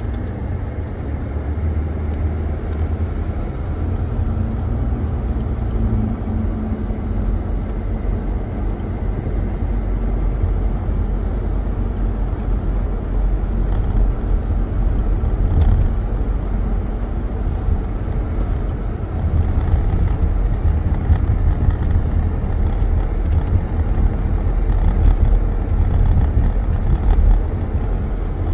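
Road noise heard from inside a moving car: a steady low rumble of engine and tyres on wet pavement, growing somewhat louder in the second half.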